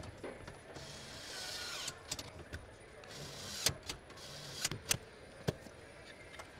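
Car interior assembly work at a dashboard: a short whirring hiss that falls in pitch about a second in, then scattered sharp clicks and knocks of parts and tools being fitted, the loudest a little past the middle.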